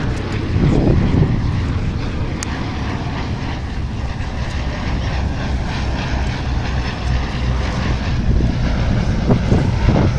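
Westland Lysanders' radial piston engines droning steadily in a flypast, with some rougher, gusty noise near the start and near the end.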